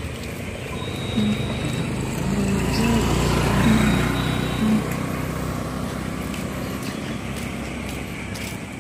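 A motorised two-wheeler passing close by: its engine noise swells to a peak about three to four seconds in, then fades slowly.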